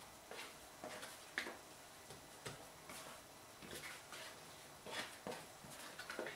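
Hands and a plastic dough scraper working and folding bread dough on a silicone baking mat: soft scrapes, pats and light taps at irregular intervals, the sharpest about a second and a half in and again about five seconds in.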